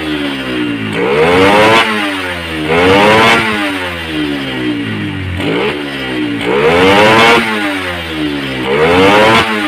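Yamaha Jupiter MX's 135cc single-cylinder four-stroke engine being blipped hard about four times, each rev climbing quickly and dropping back to idle. It is running a BRT racing CDI with the rev limit removed, so the revs rise without the limiter cutting in, which the owner calls clean.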